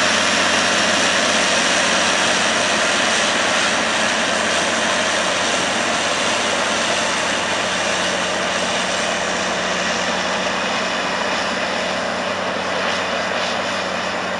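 Caterpillar D8T bulldozer's C15 diesel engine running hard under load as it pushes soil, a steady heavy drone that slowly grows quieter as the machine moves away.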